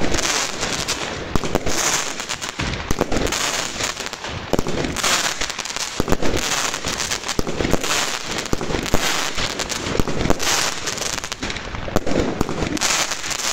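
Fireworks going off: a dense, continuous crackle of small bangs with louder bangs roughly every second.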